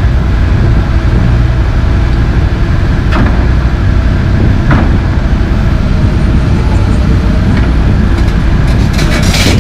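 Komatsu PC220 LC track excavator's diesel engine running steadily under load while the bucket works broken concrete, with a few sharp knocks about three and four and a half seconds in and a clatter near the end.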